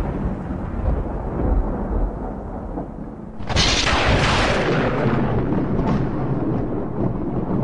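A deep, continuous rumble. About three and a half seconds in, a sudden loud crash-like hit breaks in and fades back into the rumble.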